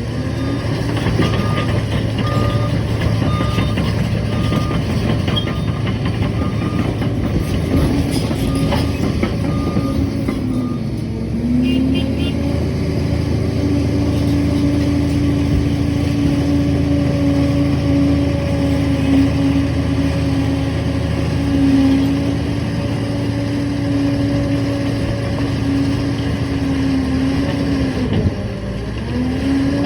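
Liebherr PR 746 crawler dozer's diesel engine working, with a reversing alarm beeping about once a second for the first ten seconds or so as the machine backs up. About eleven seconds in the engine rises in pitch and holds steady at higher revs, dipping briefly and rising again near the end.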